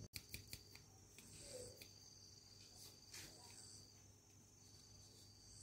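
Near silence with faint, high-pitched insect trilling that comes and goes, and a few soft clicks in the first second.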